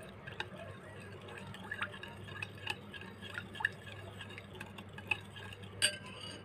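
Metal spoon stirring powdered sugar into a little water in a glass bowl to dissolve it, with a scatter of light clinks of the spoon against the glass and one louder clink near the end. A low steady hum runs underneath.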